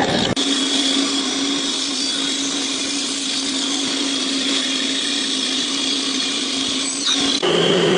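A power tool running steadily with a constant hum and hiss, cutting off abruptly near the end into a different, fuller sound.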